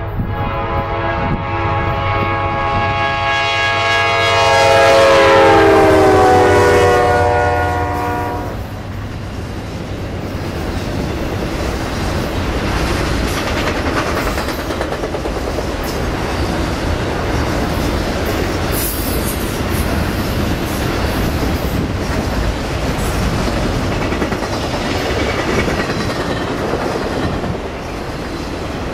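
Freight locomotive sounding its air horn, a multi-note chord, over the hum of its engine. The chord drops in pitch as the locomotive passes and stops about eight seconds in. Then comes the steady rumble and wheel clatter of a long string of autorack cars rolling by.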